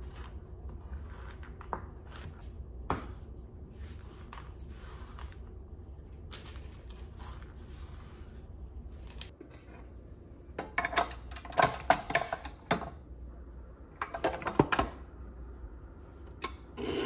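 A few sharp knocks of a chef's knife on a wooden cutting board as macadamia nuts are chopped. Later come clusters of light clattering and clinking from kitchen handling, the loudest about ten to fifteen seconds in.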